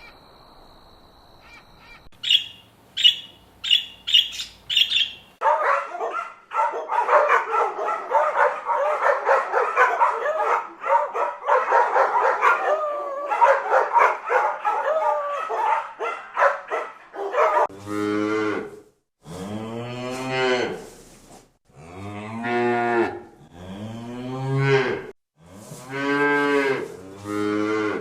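A run of different animal calls in turn. First a few short, sharp calls, then a dense chorus of many overlapping calls, and from about 18 seconds in a series of deep calls about a second long, repeated with short gaps.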